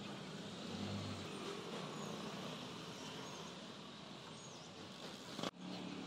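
Street traffic noise: a steady wash of passing vehicles with a low engine hum about a second in and faint high chirps. A sharp click near the end.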